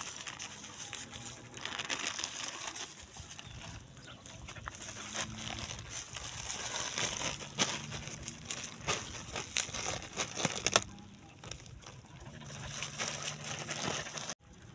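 A dog tearing and chewing at a plastic bag on dry straw: irregular crinkling and crackling of plastic with rustling straw.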